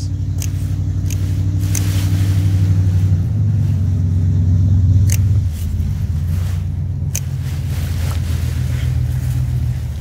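Steady low engine drone, loudest for the first five seconds or so and then a little weaker, with a few sharp clicks of hand clippers snipping sweet potato vines.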